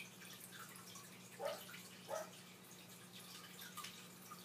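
Faint trickling and dripping of aquarium water over a steady low hum, with two louder drips about one and a half and two seconds in.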